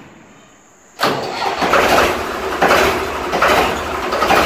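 Ford 3600 tractor's three-cylinder engine starting abruptly about a second in, then running loud with a steady low rumble and an uneven swelling beat roughly every second.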